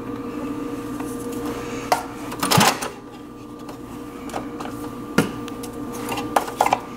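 Sharp plastic clicks and knocks as single-serve coffee pods are handled and a Keurig brewer's pod holder is worked open, a loud cluster about two and a half seconds in and more near the end, over a steady low hum.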